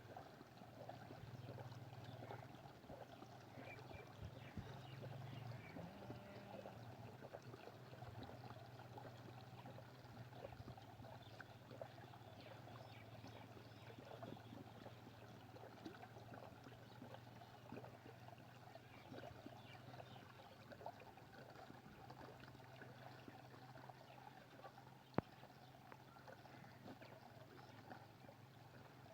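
Faint water running and trickling, over a steady low hum, with one sharp click near the end.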